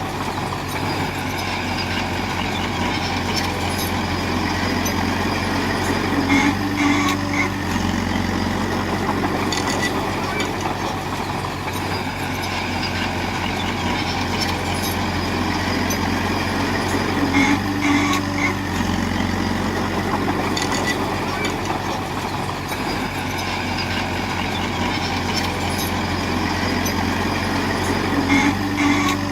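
Heavy diesel construction machine, a bulldozer, running steadily under work. A brief higher-pitched tone comes about every eleven seconds.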